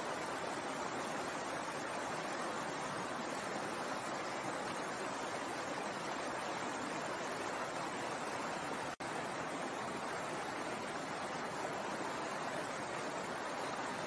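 Stream water flowing over rocks, a steady rushing wash, which cuts out for an instant about two-thirds of the way through.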